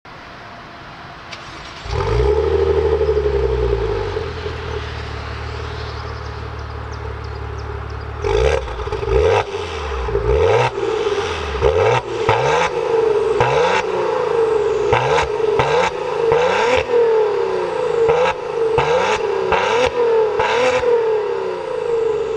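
Maserati Ghibli V6 engine and exhaust starting up about two seconds in, flaring and settling to idle. From about eight seconds on, a long series of quick throttle blips while parked, roughly one a second.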